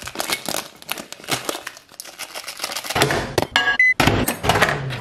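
Foil-lined protein bar wrapper crinkling as it is peeled open, then a couple of short electronic beeps from microwave touch buttons being pressed, with a low hum coming in near the end.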